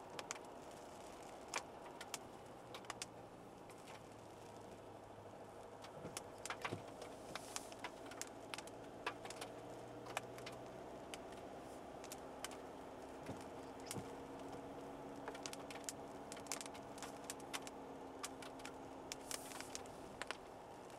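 Inside the cabin of a SsangYong All New Rexton on the move: a steady low engine and road hum, its pitch drifting slightly upward through the middle, with many sharp ticks at irregular intervals, typical of raindrops striking the roof and windscreen.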